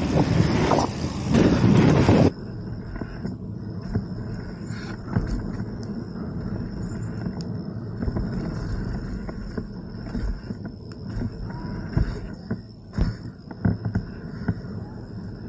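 Wind roaring on a helmet-mounted camera's microphone during a mountain-bike ride. It cuts off suddenly about two seconds in, leaving quieter outdoor ambience with a faint steady high whine and a few scattered clicks and knocks.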